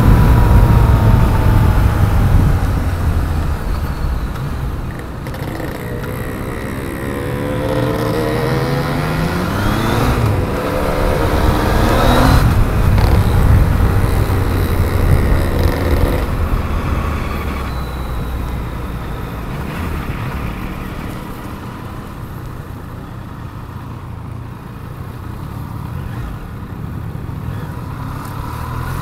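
Yamaha MT-09's three-cylinder engine heard on board while riding in traffic, with its pitch rising as it accelerates about eight to twelve seconds in. It then drops back and runs quieter as the bike slows.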